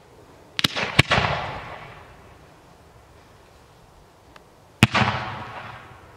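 A 45mm gold willow tail firework candle firing: two sharp launch reports close together near the start and a third about four seconds later, each followed by a hiss that fades over a second or two.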